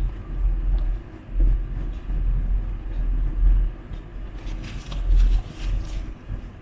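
Foundation brush buffing liquid foundation over the face, heard as a cluster of quick, soft rubbing strokes from about four and a half to six seconds in. An uneven low rumble runs underneath and is the loudest sound.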